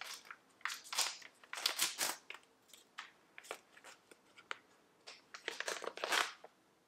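A bag of coffee being handled, crinkling and rustling in short, irregular bursts.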